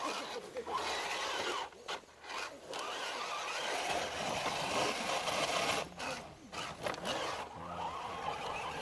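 Electric motor and gears of a scale RC crawler truck whining as it drives over the course, the pitch rising and falling with the throttle and dropping out briefly a few times.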